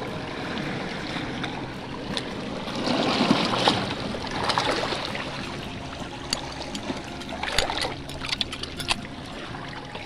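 Seawater washing and trickling over shoreline rock, swelling louder for a moment about three seconds in. In the second half come scattered sharp clicks and scrapes of a serrated metal knife blade against the rock as chitons are pried off.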